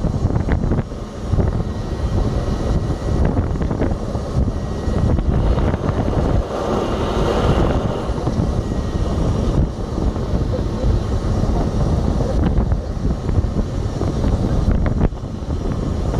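Off-road 4x4 driving through deep snow, heard from inside the cab: a steady rumble of engine and tyres working through the snow.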